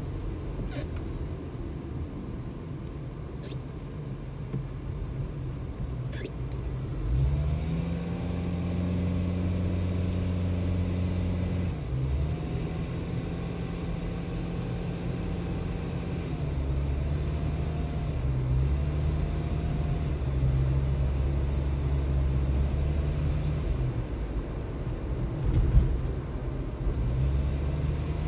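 Car engine and road rumble heard from inside the cabin while driving; the engine note steps up and drops back several times as the car speeds up and slows. A short knock comes near the end.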